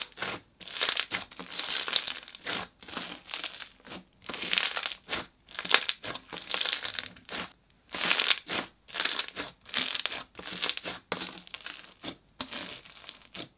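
White-glue slushy slime full of small pellets being squeezed and pressed by hand, giving crunchy crackles in repeated bursts as the air pockets trapped by the pellets collapse.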